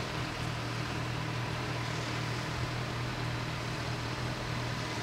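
Steady low vehicle rumble under an even background rush, with no bell or horn.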